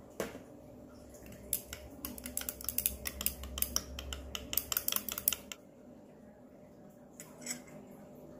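Metal stirring rod clinking rapidly and irregularly against the inside of a small glass beaker as a liquid is stirred, for about four seconds. A single ringing clink of rod on glass comes just before the stirring starts.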